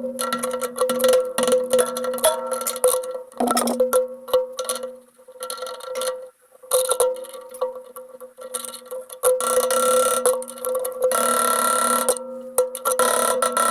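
Irregular clicking and clanking of hand tools on metal parts, over a steady hum. About eleven seconds in, a short stretch of hissing noise.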